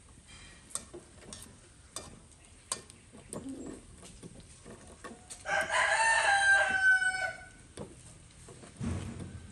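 A rooster crows once, a call of nearly two seconds a little past the middle, its pitch dropping slightly at the end. Before it, metal tongs click a few times against a steel wok of frying sausages.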